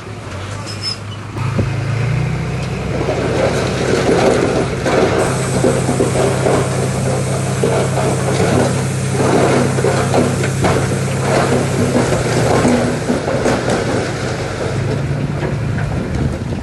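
Heavy diesel earthmoving machine working under load. Its engine picks up about two seconds in and holds steady, with dense clattering and crunching of stone and metal through the middle, then eases near the end.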